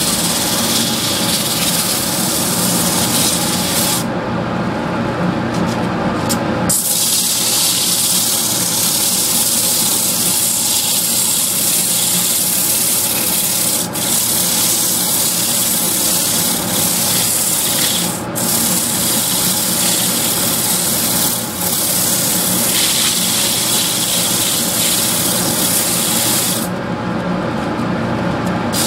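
A lathe running, with a steady scraping hiss of a tool or abrasive working the spinning piece. The hiss stops twice for two to three seconds, about four seconds in and near the end, while the machine keeps running.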